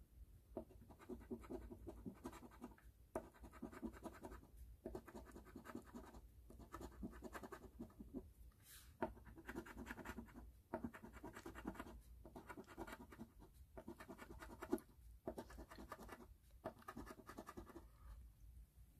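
Faint coin scratching the scratch-off coating from an instant lottery ticket on a wooden table. It comes in repeated spells of quick strokes, each a second or two long, with brief pauses between spots.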